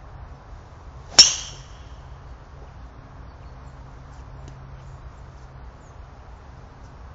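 Golf driver striking a teed-up ball: one sharp crack with a short high-pitched ring, about a second in, over a faint steady outdoor background.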